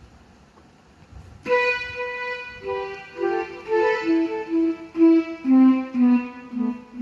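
Casio CT-X700 digital keyboard playing a short melody through its built-in speakers: after about a second and a half of quiet, a string of sustained notes comes in, stepping down in pitch, with several quicker notes near the end.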